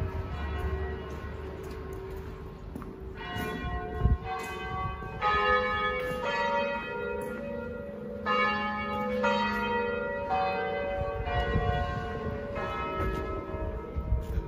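Large tower bells ringing: a series of strikes about once a second, starting about three seconds in, each note ringing on and overlapping the next, over a low city rumble.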